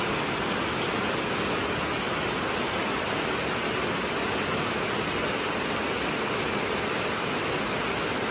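Heavy tropical rain falling on rainforest foliage, a steady, even hiss with no breaks.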